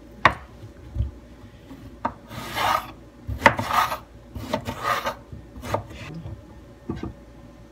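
Kitchen knife slicing through a raw eggplant: three longer rasping cuts through the skin and flesh, with several sharp knocks as the blade hits the cutting board.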